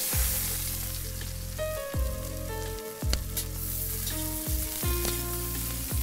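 Food frying, a steady sizzle that starts right at the beginning, with background music playing under it.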